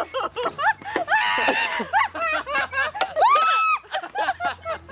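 People laughing and squealing in short wordless bursts, with one longer high squeal about three seconds in.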